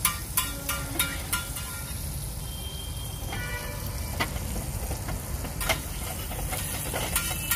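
An egg sizzling in butter on a large flat iron griddle. The metal spatula clicks sharply against the griddle several times, with a couple of quick taps near the start and single taps later.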